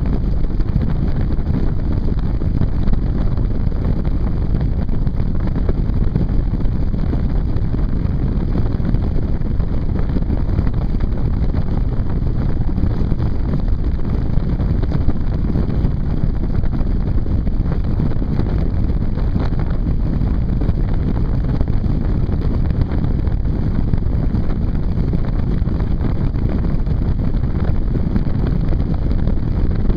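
Strong wind buffeting the microphone of a land yacht's onboard camera, a steady low rush, mixed with the noise of the land yacht running over the beach.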